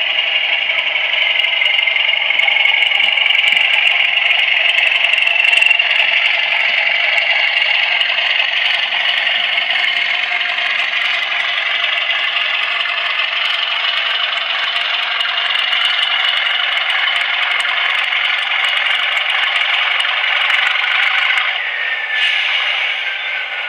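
Howes DCC sound decoder in a Bachmann OO-gauge Class 37 model, playing the Class 37's English Electric diesel engine under power through the model's small speaker, thin and without bass, with a high whistle over it and light clicking. Near the end, as the model comes to a stand, the whistle falls in pitch as the engine eases back.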